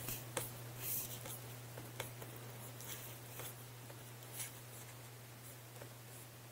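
Scattered faint clicks and taps from working a computer while navigating a web app, over a steady low hum.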